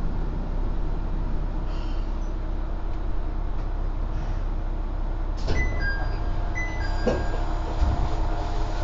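Kanto Railway KiHa 5000 diesel railcar's engine running steadily as the car comes to a stop, heard from inside the car. About five and a half seconds in there is a clunk, then a two-note door chime sounds twice as the sliding doors open, with a thud from the door gear.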